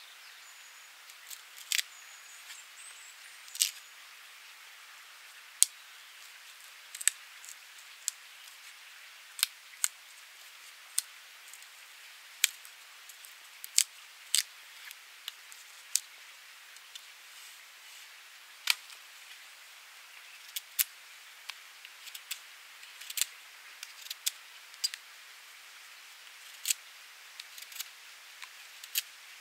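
A knife splitting a green wooden rod lengthwise, giving irregular sharp cracks and clicks as the wood fibres part and the blade is worked along the split.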